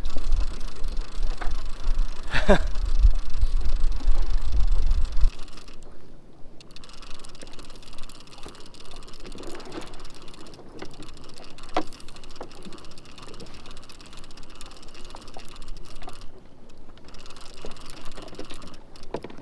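Wind buffeting the microphone for about the first five seconds, then cutting off. After that come softer sea sounds: small waves lapping at a kayak's hull, with light scattered clicks and taps.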